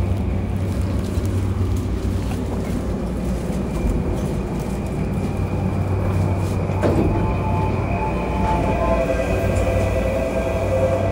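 JR East E235-0 series electric train running as it comes into Ueno station: a steady rumble and low hum. About seven seconds in there is a knock, and then a steady whine sets in over the rumble.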